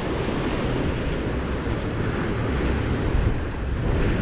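Wind buffeting the microphone with a low, uneven rumble over the steady wash of sea surf.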